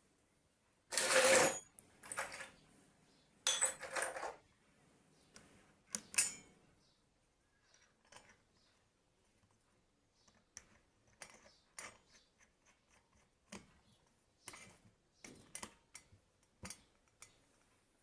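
Metal parts and tools being handled on a workbench: a few short bursts of scraping and clattering, the loudest about a second in, then a string of light clicks and taps.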